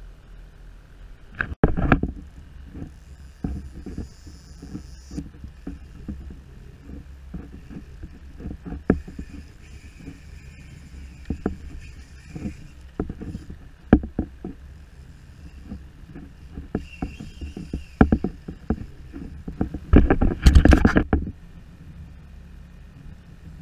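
Irregular knocks and clunks on a plastic kayak hull, with water sloshing against it. There are two louder bursts of clattering, about two seconds in and near the end.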